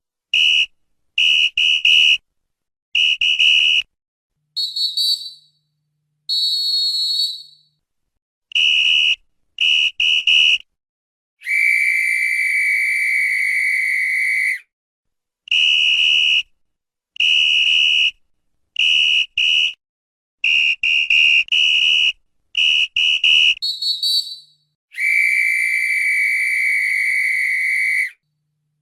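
Referee's whistle blown in a long series of sharp, high-pitched blasts: single short toots, quick doubles and triples, and two long blasts of about three seconds each. The blasts come at more than one pitch, with the long ones lower.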